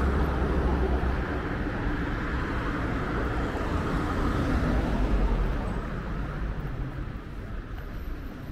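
City street traffic: a steady wash of passing vehicles that swells about five seconds in and eases off near the end.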